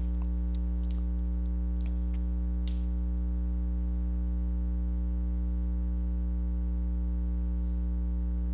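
Steady electrical hum with a stack of even overtones, strongest at the low fundamental: mains buzz picked up on the recording. A few faint ticks in the first few seconds.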